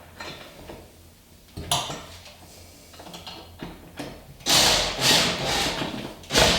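Screws being driven to fasten a grab bar's flanges to a tiled shower wall: light handling and a click a bit under two seconds in, then a loud stretch of screwdriving noise from about four and a half seconds in that ends with a knock.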